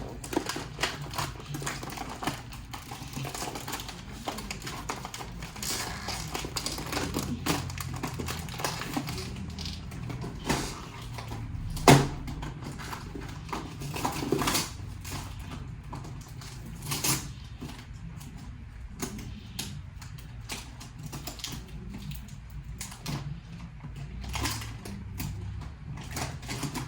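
Crisp, irregular crunching and crackling from handling and eating Goldfish crackers, with a sharper crack about twelve seconds in.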